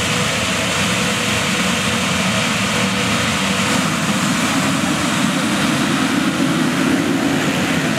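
Many motocross bikes running together at a race start, engines revving at the line and then accelerating hard as the field pulls away in the second half.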